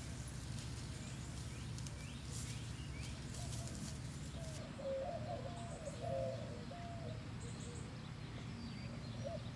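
A dove cooing: a short, low warbling phrase about halfway through, repeated near the end, with a few brief small-bird chirps. Faint rustling clicks and a steady low rumble in the first half.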